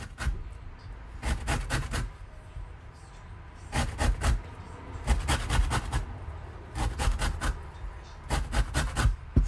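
Lemon rubbed up and down the fine side of a metal box grater on a wooden cutting board, zesting it. The quick scraping strokes come in about five bursts with short pauses between.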